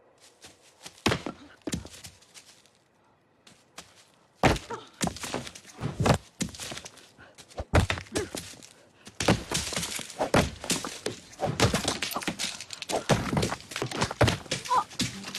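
Thrown stones hitting a person: two hard thuds about a second in, then from about four seconds in a dense, irregular barrage of hits that continues to the end.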